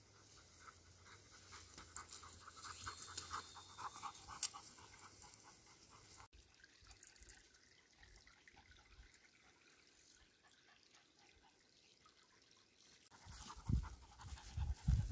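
Dog panting with rustling through grass for the first few seconds. After a cut comes a quiet stretch with a faint water trickle. Near the end there are loud thuds and scraping as a knife cuts a pine mushroom out of the soil.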